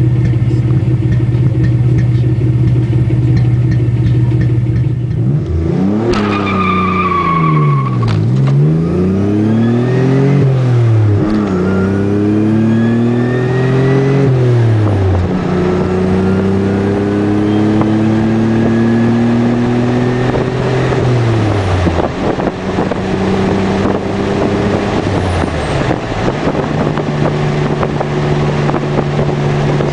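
Turbocharged V6 of a 1987 Nissan 300ZX Turbo through a 3-inch exhaust, running at a steady note, then working up and down through the gears from about six seconds in. The pitch climbs, drops at each shift and climbs again several times, with a fainter high whine rising alongside, before settling to a steady cruise near the end.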